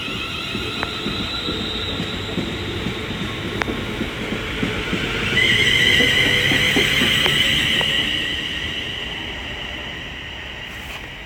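Pair of Class 350 Desiro electric multiple units pulling away, with steady rumble and a high electric whine from the traction motors. The whine comes in about five seconds in, is loudest a second later, then fades as the train moves off.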